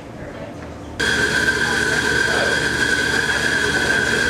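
An electric coffee machine's motor is switched on about a second in and runs steadily and loudly, with a high whine.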